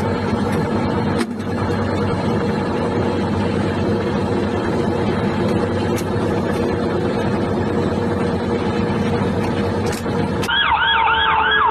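Steady engine and running noise inside a military vehicle's crew compartment, with a sharp knock about a second in. Near the end it cuts to a rapidly warbling siren.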